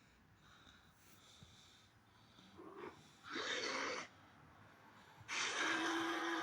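Vocal sound effects separated by short silences: a brief breathy, wheezing exhale about three seconds in, then a longer, louder voiced cry held on one steady pitch from about five seconds in.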